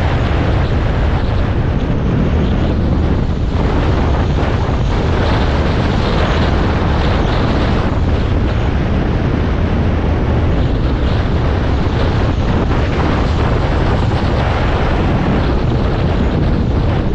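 Enduro motorcycle riding at a steady speed: the engine running evenly under wind noise on the microphone.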